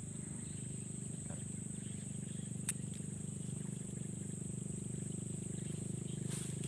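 Swamp insects buzzing steadily at a high pitch over a low, rapidly pulsing drone, with one sharp click a little before the middle.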